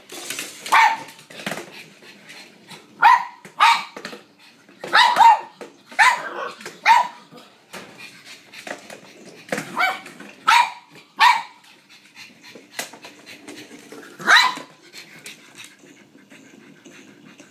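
Pug barking repeatedly, about a dozen short barks coming singly and in quick pairs, stopping a few seconds before the end.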